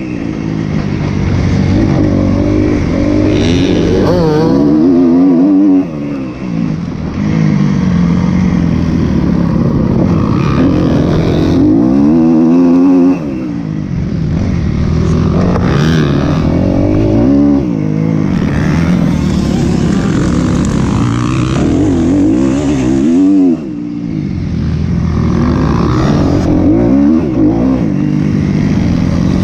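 2012 Kawasaki KX250F's four-stroke single-cylinder engine, heard from on board, revving up and falling back again and again as the bike is ridden hard on a motocross track. The throttle is chopped sharply about six, thirteen and twenty-three seconds in, then wound on again.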